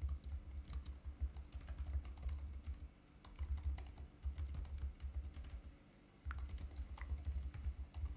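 Computer keyboard keys clicking as a command is typed, in quick irregular runs with short pauses about three and six seconds in.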